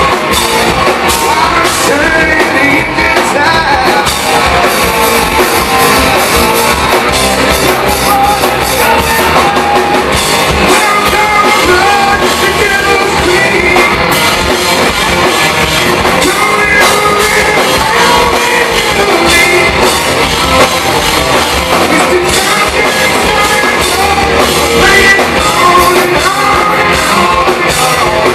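Live hard rock band playing loud, with a singer over distorted electric guitars and a drum kit, heard in a club.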